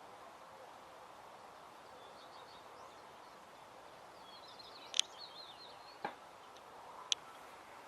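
Faint outdoor ambience with small birds twittering in short bursts, about two seconds in and again around five seconds, and a few sharp clicks in the second half.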